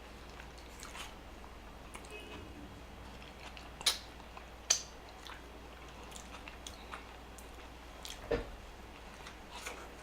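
Close-miked eating: a person chewing fast food, with soft mouth sounds and a few sharp clicks about four, five and eight seconds in.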